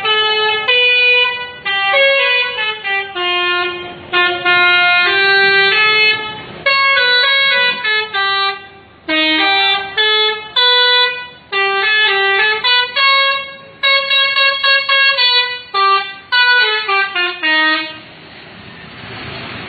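Multi-tone 'telolet' bus horn playing a tune: phrase after phrase of stepping notes, ending in a quick run of short toots. A steady rushing noise follows near the end.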